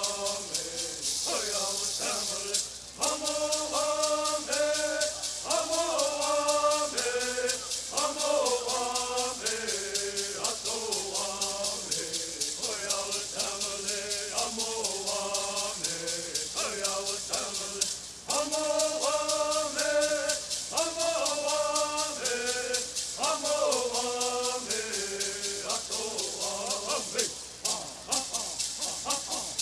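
Southern California Bird Singing: a group of singers chanting a Bird song together in repeated phrases over a steady fast shaking of hand rattles. The song breaks briefly twice, about three seconds in and again just past halfway, before the next round of phrases begins.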